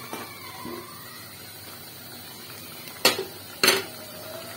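Two sharp knocks of a spoon against an aluminium cooking pot, about three seconds in and again half a second later, over the low steady bubbling of a tomato gravy simmering down.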